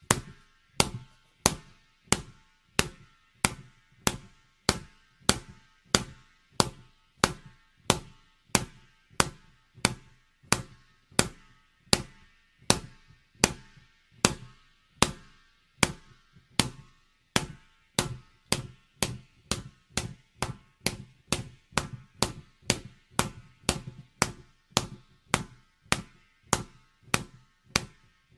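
A ball bouncing over and over in an even rhythm, a little over one bounce a second, each bounce a sharp hit with a short hollow ring.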